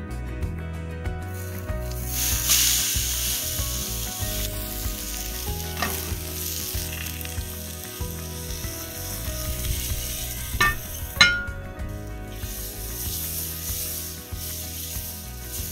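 Food frying in a hot pan, a steady sizzle that swells about two seconds in, with three sharp clicks in the middle, the loudest about eleven seconds in.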